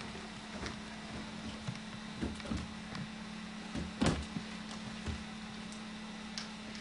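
A toddler's feet stepping and bouncing on a mini trampoline, giving a few soft low thumps; the loudest and sharpest comes about four seconds in. A steady low hum runs underneath.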